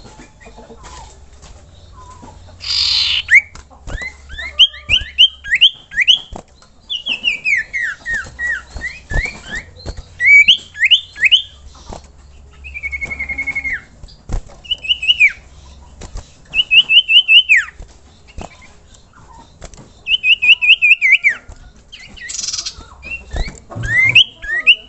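Common iora (cipoh) singing: phrases of quick, clear whistled notes, some repeated on one pitch and some falling in a descending run, with short pauses between phrases. Two harsh hissing bursts come early on and again near the end.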